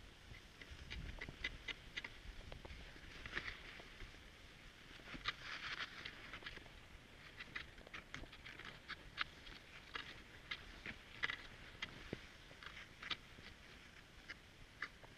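Cross-country skis and poles on snow: an irregular string of sharp clicks, with a couple of brief swishes.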